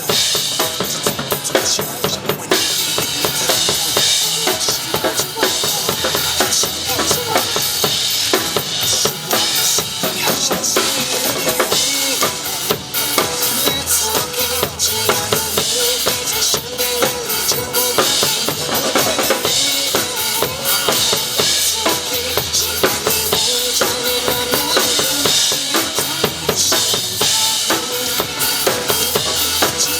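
Acoustic drum kit played live, a steady busy beat of kick drum, snare and cymbals, over backing music with a melody line.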